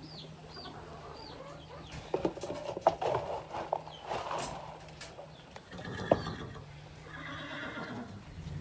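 A horse whinnying at feeding time, with a cluster of sharp knocks about two to four seconds in.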